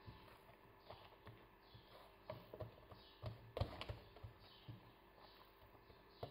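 Faint, irregular soft taps and pats of hands pressing and stretching risen yeast dough out on an oiled silicone baking mat, the loudest about three and a half seconds in.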